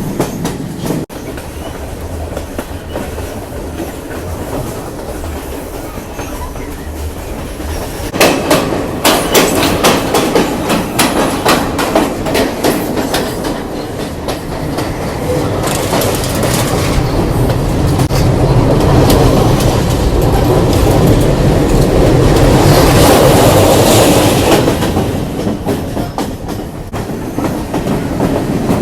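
Train running along the track: a steady rumble, then a quick run of wheel clacks over rail joints about eight seconds in, followed by a louder rushing noise.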